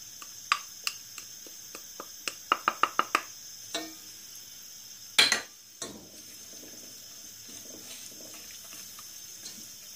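A wooden spoon tapping and scraping as cornstarch is spooned from a small glass bowl into a stainless steel pot, with a quick run of about five taps, then one louder knock about five seconds in. The last few seconds hold faint stirring of the frozen raspberries, sugar and starch in the pot.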